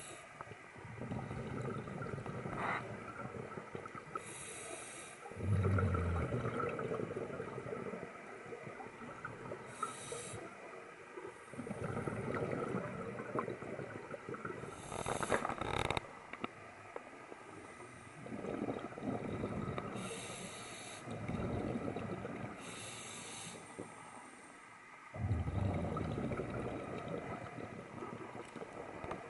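Scuba diver breathing through a regulator underwater: a short hiss of each inhalation, followed by a longer, louder bubbling rumble as the exhaled air vents from the regulator. The cycle repeats slowly, about one breath every five to six seconds.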